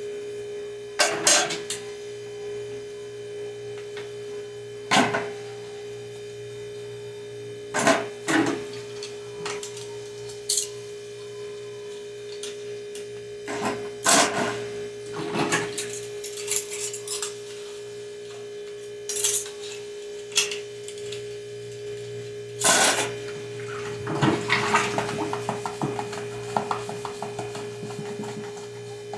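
Hand-washing dishes at a kitchen sink: plastic containers, spoons and cutlery knock and clink against each other and the sink at irregular intervals, with a busier run of small clatters near the end. A steady hum sounds under it throughout.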